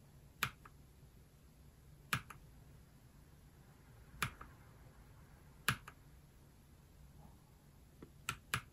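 Keys of a NuPhy Halo75 mechanical keyboard pressed one at a time, six sharp clicks roughly every two seconds, the last two close together near the end. Each press cycles the keyboard's RGB backlight to another lighting effect.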